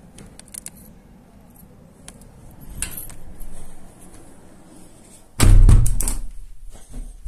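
A faint low background with a few small clicks, then a sudden loud thump followed by rustling about five seconds in.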